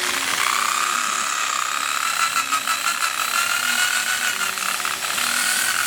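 Handheld electric power tool running under load: a steady motor whine that drifts slightly in pitch, over a hiss of noise from the work.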